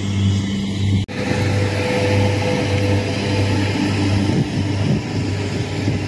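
An engine running steadily with a low hum, broken by a brief dropout about a second in.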